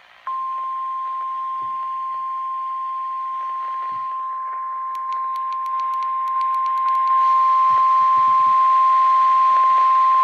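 NOAA Weather Radio 1050 Hz warning alarm tone from a Midland weather alert radio's speaker: one steady high tone about ten seconds long, signalling that a warning broadcast, here a special marine warning, follows. Around five to seven seconds in there is a quick run of clicks from the radio's buttons, and the tone steps up louder.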